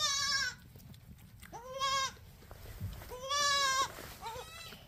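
Mini-Nubian goats bleating: four wavering bleats about half a second each, the last one fainter.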